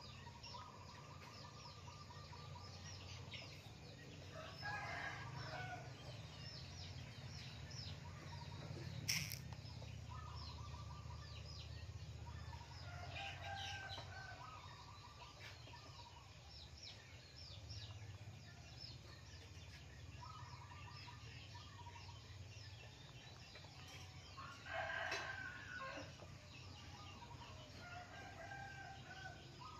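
Faint chickens clucking with a rooster crowing, loudest near the end, against a steady low hum and short high chirps from small birds. A single sharp click comes about nine seconds in.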